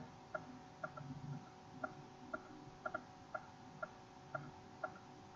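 Faint, regular ticking: short, slightly pitched ticks about twice a second, a few of them doubled, over quiet room tone.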